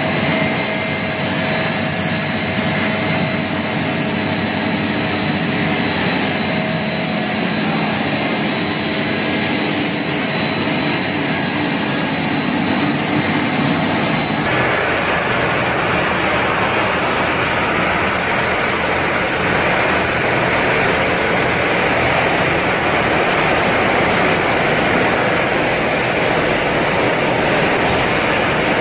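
Corn puff twin-screw extrusion line running: a steady loud machinery noise with a thin high whine over it. About halfway through, the sound changes abruptly to a more even hiss.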